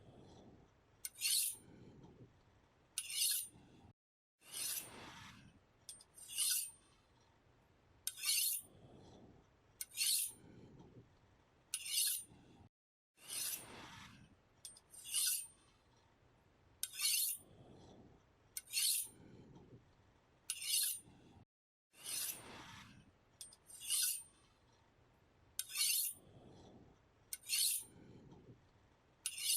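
A knife being sharpened: a regular series of short scraping strokes of the blade, about one every one and a half to two seconds.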